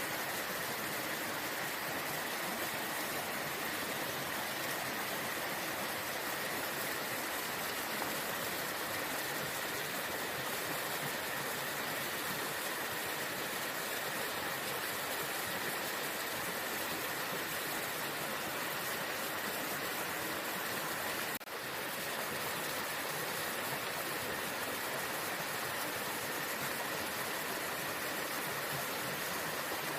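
Waterfall rushing with a steady, even roar of falling water, dipping briefly once about two-thirds of the way through.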